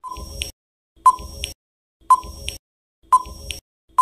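Quiz countdown timer sound effect: a short electronic beep followed by a click, repeating once a second.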